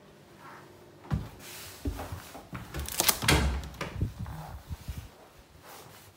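Knocks of footsteps and an interior door being pushed open and swinging, with a brief loud scraping rustle about three seconds in.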